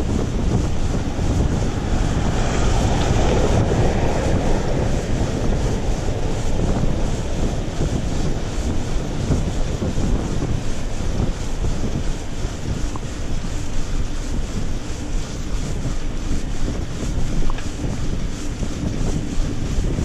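Steady wind buffeting the microphone of a camera carried on a moving bicycle, heavy in the low end. There is a brief louder rush of hiss about two to four seconds in.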